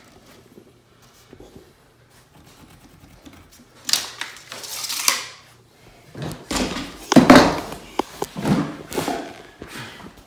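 Knocks, thumps and scrapes of hand tools on a plywood subfloor. After a few quiet seconds come two brief sharp scrapes, then a run of irregular knocks, the loudest about seven seconds in.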